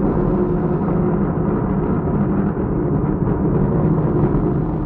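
Falcon 9 rocket's first-stage engines running at full thrust in the first seconds after liftoff: a steady, deep, crackling rumble.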